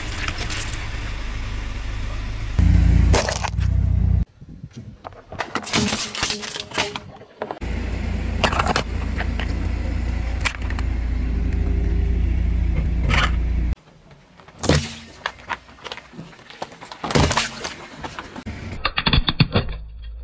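A car tyre slowly rolling over and crushing small objects, starting with oranges and then plastic items, among them a lighter. There are repeated sharp cracks and snaps. In two long stretches, the car's engine runs with a low, steady rumble.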